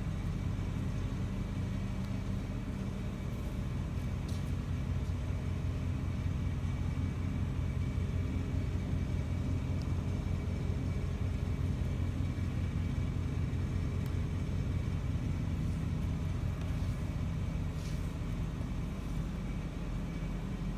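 A steady low hum with a rumble beneath it, unchanging throughout.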